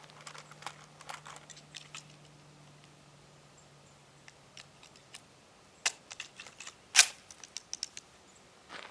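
Light metallic clicks and rattles of a Kel-Tec PR-5.7 pistol and its magazine being handled while a misfeed is cleared, with a louder, sharp click about seven seconds in.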